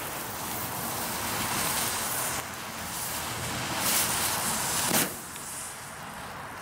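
Two small ground-spinner fireworks hissing steadily as they burn with silver sparks, with two short louder rushes about four and five seconds in.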